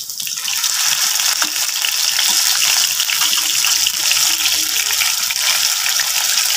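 Marinated fish pieces shallow-frying in hot oil in a non-stick pan: a steady sizzle full of fine crackles. It swells over the first second as the pieces are turned onto their second side in the oil.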